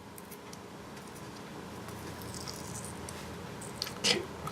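Faint scratching and small plastic rustles as the wrapper and glued-on plastic insulation disc of a fake 18650 lithium cell are picked at by hand, with a sharper scrape or click about four seconds in.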